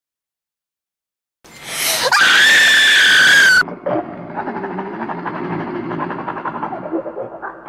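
Dead silence, then a loud, high-pitched scream that rises, is held about two seconds and cuts off sharply. A lower, rough, rasping noise follows for about three seconds and fades.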